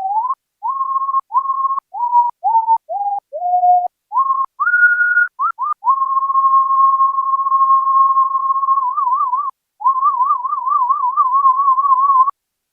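Roland SH-01 Gaia synthesizer playing a programmed human-whistle patch: a pure whistle-like tone played as a tune of short notes, each scooping up in pitch at its start. About six seconds in comes a long held note, and wavering vibrato starts on the last notes. It cuts off suddenly shortly before the end.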